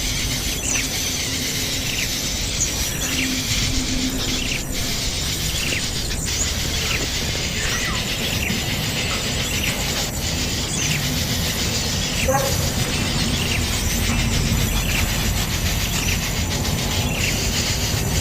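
Small birds chirping repeatedly in short rising and falling calls over a steady background hiss.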